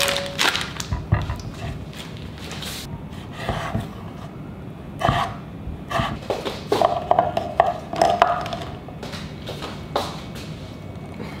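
Kitchen prep sounds: a plastic wrapper crinkling as a slab of guanciale is unwrapped, then a chef's knife knocking on a wooden cutting board in irregular strokes as the guanciale is diced.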